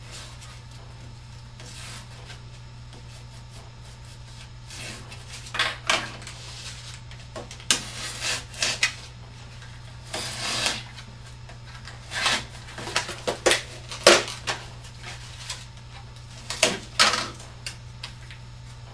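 Utility knife cutting through cardboard in a series of short, irregular scraping strokes that begin about five seconds in, over a steady low hum.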